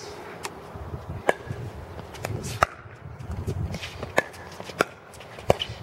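Pickleball rally: about six sharp pops of paddles striking the hollow plastic ball, and the ball bouncing on the hard court, spaced irregularly half a second to a second apart.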